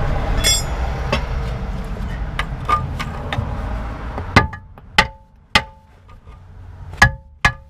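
A rumbling rush fades away over the first four seconds. Then a hammer strikes the steel lower suspension arm of a VW Golf MK4 five times, each blow sharp with a short metallic ring, trying to knock the seized arm free; it does not budge.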